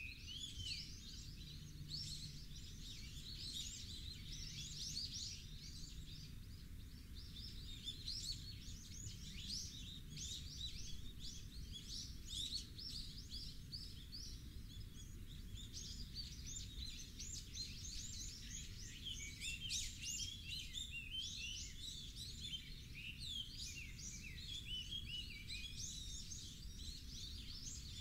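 Many small birds chirping and twittering in a dense, continuous chorus over a steady low rumble.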